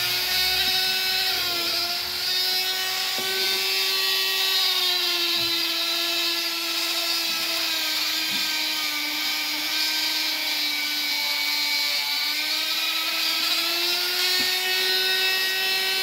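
Small electric rotary tool (Dremel-type) running at steady high speed against the corroded aluminium rim of an electric scooter's hub-motor wheel. Its whine sags slightly in pitch, as if under load, through the middle and picks up again near the end.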